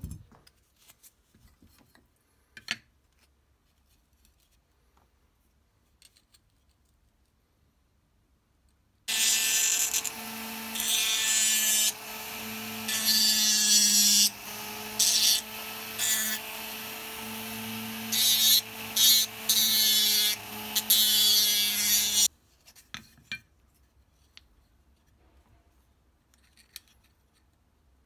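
Small rotary tool with a sanding drum running, sanding a thin pine knife-handle scale. It starts about nine seconds in, runs steadily for about thirteen seconds with the grinding getting louder in spells as the drum bites into the wood, then stops suddenly. Faint handling clicks come before and after.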